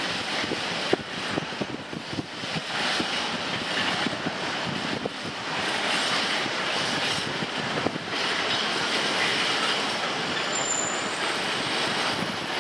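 Freight train hauled by three coupled Class 66 diesel locomotives running past, its wheels clicking over the rail joints and points. A brief high wheel squeal comes near the end.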